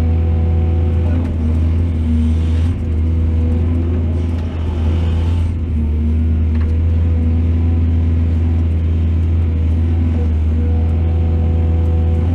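Excavator's diesel engine running steadily with a deep, even rumble. Two brief rushes of noise come about two and five seconds in.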